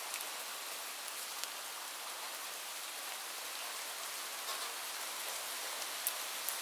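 Steady light rain: an even hiss of falling rain with scattered individual drops ticking on a surface, a few sharper drips near the end.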